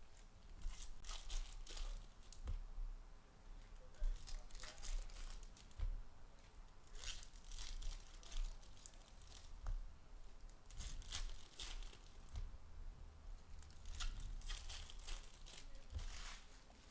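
Trading-card pack wrappers being torn open and crinkled by hand, in about five short bursts a few seconds apart.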